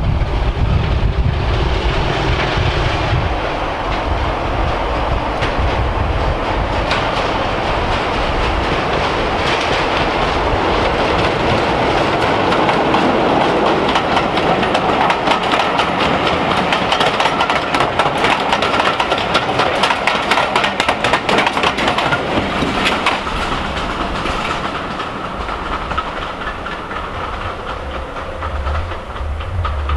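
British Rail Class 33 'Crompton' diesel locomotive D6515 and its coaches passing close by at speed. The wheels click rapidly over the rail joints for several seconds in the middle, and the sound eases off near the end as the train moves away.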